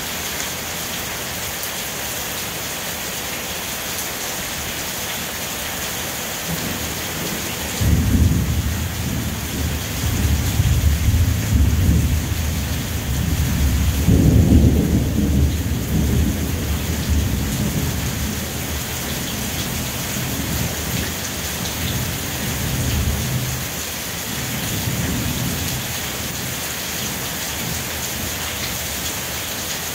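Steady rain falling. About eight seconds in, a long roll of thunder starts suddenly, rumbles for some fifteen seconds with its loudest stretch near the middle, then dies away, with a last faint swell before the rain is left on its own.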